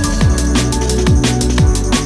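Background electronic music with a steady beat: deep kick drums that drop in pitch about twice a second, crisp hi-hat clicks and held synth notes.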